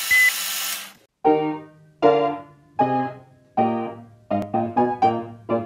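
Film-countdown sound effect: a short high beep over a steady hiss, which stops under a second in. Then piano chords are struck one at a time, each left to die away, about one every three-quarters of a second at first and quicker near the end.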